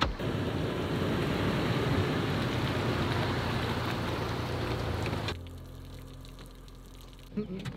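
Water splashing and streaming as an SUV tows a boat on its trailer up the ramp out of the water, with a low engine hum underneath. About five seconds in it cuts suddenly to a quieter, steady engine hum.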